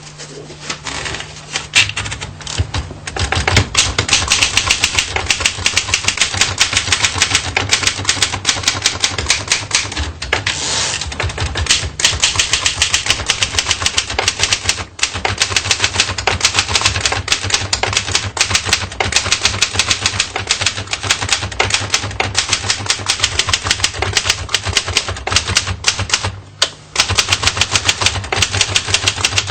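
Typewriter being typed on fast: a steady clatter of key strikes that gets louder about three seconds in, with brief breaks about halfway through and near the end.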